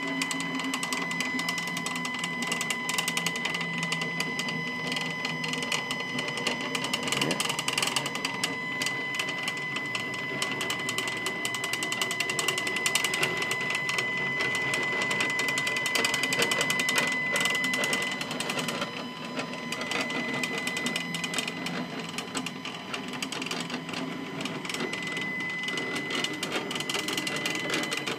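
Stepcraft 840 CNC machine driving an axis along its lead screw with its stepper motor: a steady high whine over a fast, rough rattling buzz. The owner is pretty sure a CNC machine is not supposed to sound like that.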